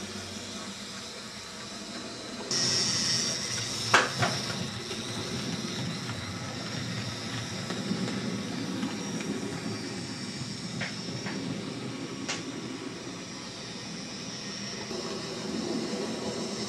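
Hornby J94 OO gauge model tank locomotive running along the track hauling box wagons: a steady motor whir and wheel rumble, with a few sharp clicks, the loudest about four seconds in. She runs a little noisy.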